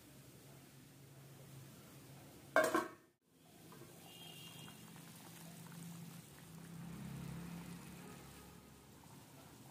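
Fish curry boiling in a pan, a low bubbling and gurgling that is strongest around seven seconds in. Two and a half seconds in there is one brief loud clatter, followed by a moment of silence.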